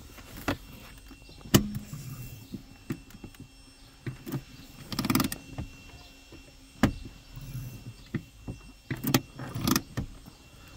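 Scattered sharp clicks and knocks inside a car's cabin, with two brief rattling bursts, one about five seconds in and one about nine seconds in.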